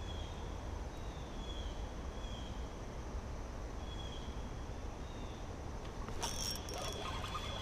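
Outdoor ambience: faint short high chirps repeat about once a second over a steady low rumble. About six seconds in, a rustling handling noise starts.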